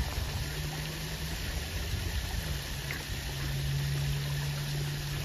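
Steady rush of running water with a low, steady hum underneath.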